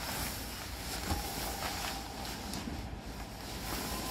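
Nylon tent rain fly rustling as it is dragged and pulled down over a pop-up hub tent, a steady rustle with a few small clicks.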